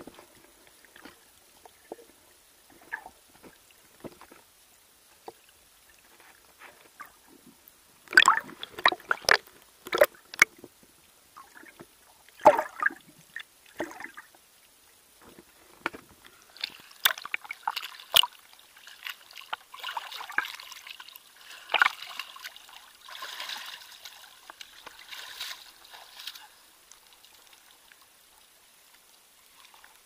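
Seawater sloshing and trickling around a submerged action camera, with scattered sharp knocks and a cluster of loud ones about a third of the way in. In the second half it turns to a rough splashing hiss as the camera nears the surface, then fades.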